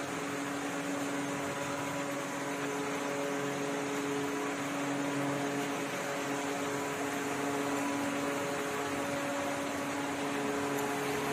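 Steady hum and hiss of electric ventilation fans blowing air through a show cave, with several faint, even tones held throughout.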